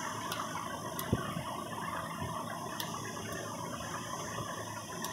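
A few light taps of a steel spoon against a raw eggshell to crack it, the sharpest about a second in, over steady background noise.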